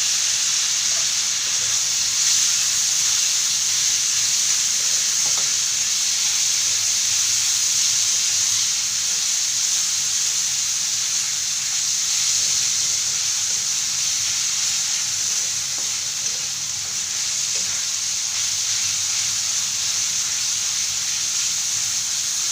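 Bitter gourd chutney sizzling in hot oil in a pan, a steady high hiss, as the tamarind water just poured in cooks off.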